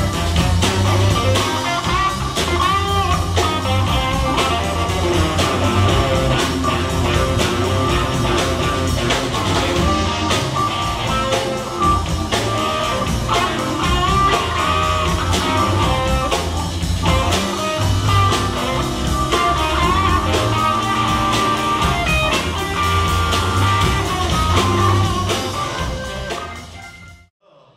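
Live band playing: electric guitar over a drum kit, with saxophone at the start and a wavering lead line running through. The sound drops out sharply just before the end.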